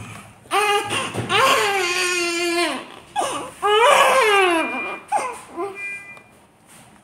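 Newborn baby crying: a long wail, then a second long wail about three and a half seconds in, then a few short cries near the end.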